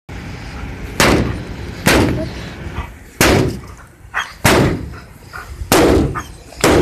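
Six loud, sharp bangs about a second or so apart, each trailing off briefly.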